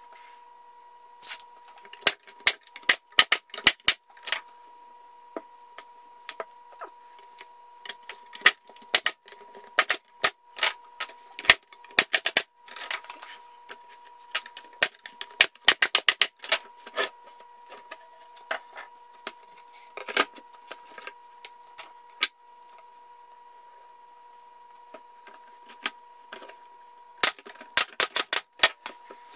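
Irregular sharp clicks and knocks as plywood and pine strips of a beehive cover are handled and fitted. Near the end comes a quick run of shots from a pneumatic brad nailer driving nails into the cover's rim. A faint steady whine runs underneath.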